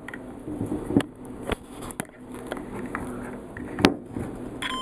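A few sharp clicks of multimeter test probes being handled and tapped together over a faint hum. Near the end the digital multimeter's continuity buzzer starts a steady high beep: the shorted leads close the circuit.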